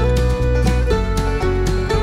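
Background country-style music with plucked strings, held notes and a steady beat.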